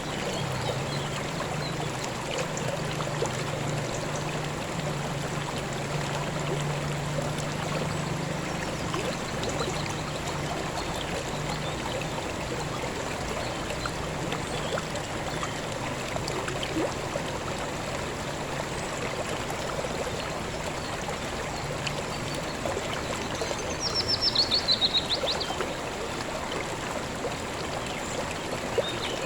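River water flowing steadily over rocks, an even rushing and babbling. A faint low hum lies under it for the first two-thirds. About 24 seconds in, a bird sings one quick trill of notes falling in pitch, the loudest sound.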